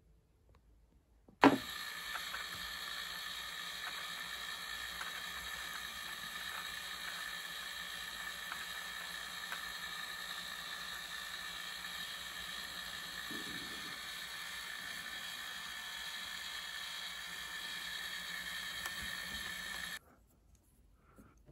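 A small electric motor fitted in a scale model aircraft is switched on with a sharp click about a second in. It runs with a steady gear whine and stops abruptly near the end.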